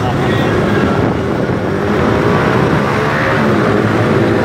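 Motorbike engines running in a dense crowd of riders, heard from a moving motorbike, with wind rushing over the microphone.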